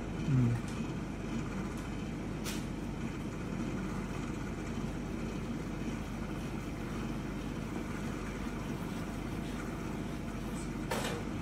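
Steady low background hum, with a brief voice just at the start and a faint click about two and a half seconds in.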